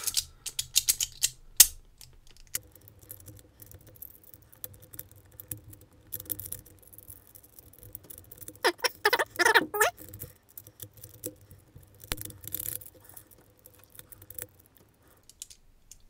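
Rapid clicks and light metallic clinks of the cast-metal Huzzle Cast Padlock puzzle's pieces being turned and slid against each other, sped up about four times.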